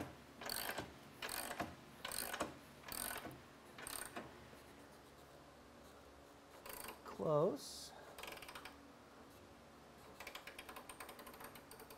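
Motorcycle lift being jacked up with a ratchet, a sharp click on each stroke, roughly one or two a second for the first few seconds. A short rising squeak comes about seven seconds in, and a quick run of fine ratchet clicks near the end.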